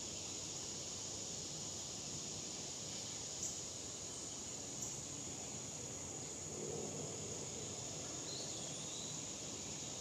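Steady, high-pitched insect drone outdoors, with two brief sharp clicks about three and a half and five seconds in and a short, faint bird call near the end.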